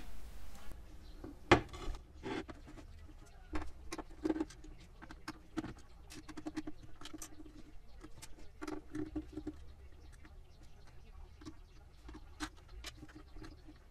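A screwdriver undoing the screws in the plastic underside of a Tefal electronic bathroom scale: scattered small clicks and ticks of the tool, screws and plastic being handled, with a louder knock about a second and a half in.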